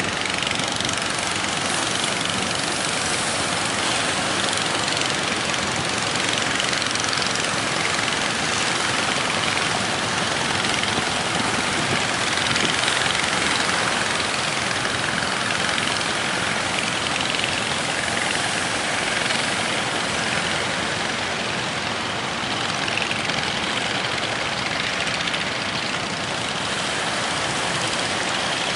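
Fishing boat's engine running steadily under way, mixed with the steady noise of strong wind and waves.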